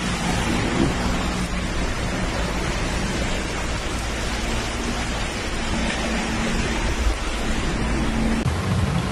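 Steady hiss of rain and running floodwater on a flooded street.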